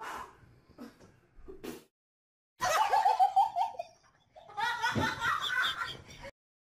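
A person laughing hard in two long fits, after a few light knocks in the first two seconds; the laughter cuts off suddenly near the end.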